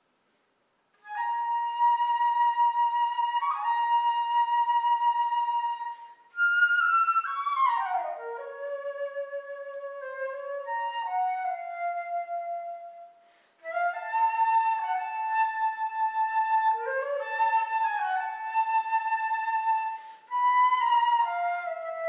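Solo flute playing slow phrases of long held notes, bending and sliding between pitches, with a quick falling run in the middle. It starts about a second in and pauses briefly twice between phrases.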